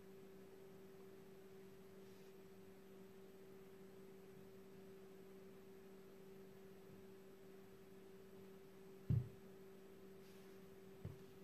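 Steady low hum in a near-silent room; about nine seconds in, a dull thump of a sandal sole set down on a wooden floor, then a lighter one near the end.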